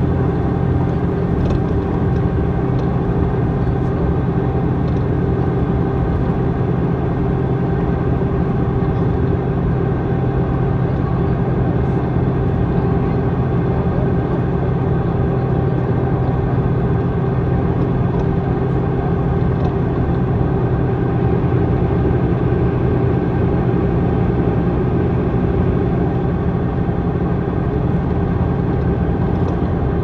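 Iveco Midirider bus with its six-cylinder Iveco Tector 6 diesel engine running steadily, the engine note holding one pitch throughout.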